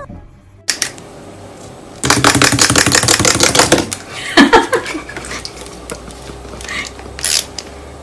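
White-bellied caique making a loud, rapid clicking chatter for nearly two seconds, then a short call that falls in pitch, with softer scattered clicks after.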